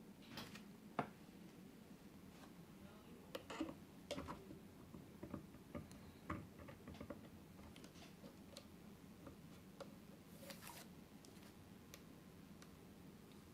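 Faint, irregular small clicks and taps of small parts being handled at a workbench, with a brief hiss just past ten seconds in, over a low steady hum.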